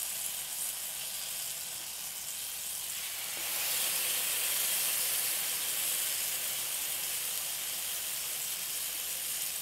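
Batter-soaked bread frying in melted plant-based butter in a hot skillet, a steady sizzle that grows louder about three and a half seconds in.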